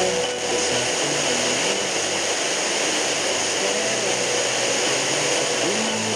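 Sangean ATS-909X receiver's speaker playing a weak, distant FM broadcast on 69.68 MHz received by sporadic-E: loud steady static hiss with faint music showing through it.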